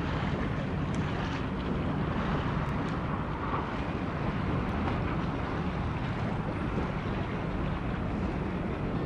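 Steady low rumble of wind buffeting the microphone over harbour ambience, with no distinct events.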